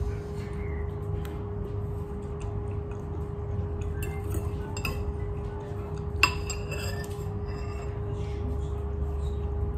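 Eating utensils clinking a few times against a bowl of noodle soup, the sharpest clink about six seconds in, over a steady low hum.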